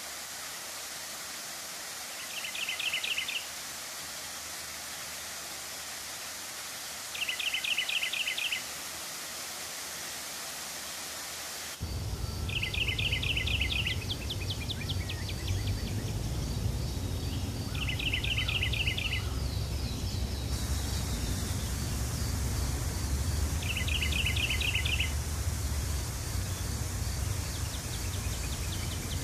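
Running water hissing steadily while a small bird sings a short, rapid trill about every five seconds, five times in all. About twelve seconds in, a deeper rushing of water comes in and stays.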